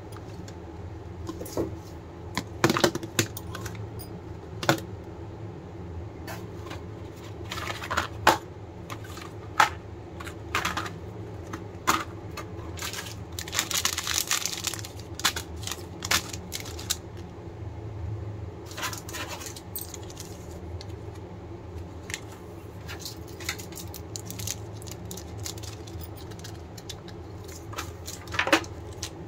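Plastic candy wrappers crinkling as packets are handled, with scattered clicks and taps of plastic surprise-egg capsules and packets being picked up and set down. About halfway through, a longer stretch of crinkling as a small wrapper is squeezed in the hands.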